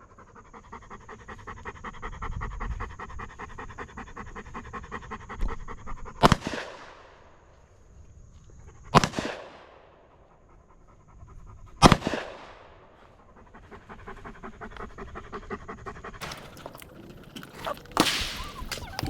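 A dog panting fast and steadily, with three loud gunshots about three seconds apart, the first about six seconds in.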